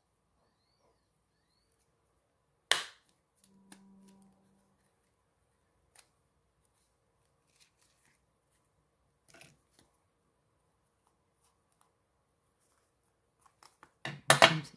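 A hand hole punch snapping once through a scrapbook album cover, followed by faint clicks and paper handling, with a burst of rustling and clicking near the end.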